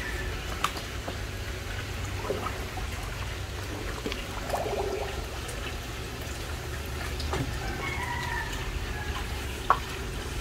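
Water dripping and gurgling as a Steinbach pool robot is lowered into the pool and sinks, air bubbling out of it, with small scattered splashes and clicks over a steady low rumble.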